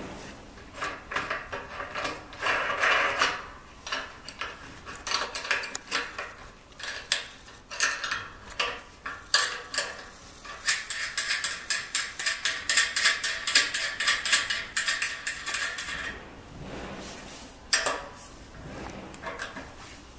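Open-end wrench clinking against the nut and threaded bolt of a steel machine stand's levelling foot as it is turned: scattered metal taps and clicks, with a dense fast run of clicks lasting several seconds from about halfway through.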